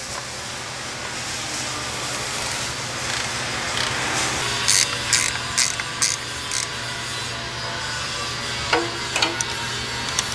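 Ratchet of a torque wrench clicking as it turns bolts into an aluminium transfer case housing, set to 21 foot-pounds. A few sharper separate clicks come about halfway through and again near the end.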